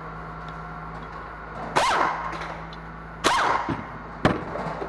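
Three sharp metallic clanks, each followed by a brief ring, as a truck's brake caliper and its bracket are knocked about and set down on the workbench, over a steady low hum.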